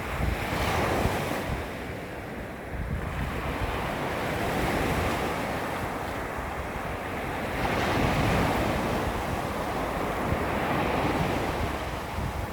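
Small waves lapping against a sandy shoreline, each wash rising and falling in turn every few seconds, with wind rumbling on the microphone.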